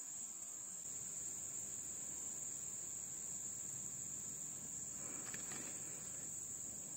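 Insects trilling: a steady, unbroken high-pitched chorus.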